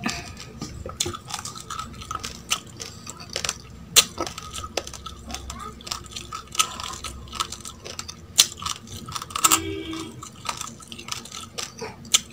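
Uncooked rice grains being chewed, an irregular run of sharp, dry crunches and cracks.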